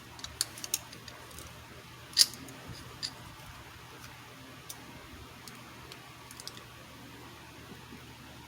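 Scattered light clicks and taps of small hand tools being picked up and handled, with one sharper click about two seconds in, over a faint steady hum.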